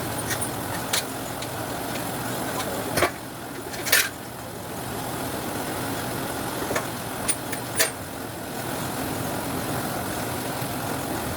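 Citrus sorting machine running steadily, with a few sharp knocks over it, the loudest about four seconds in.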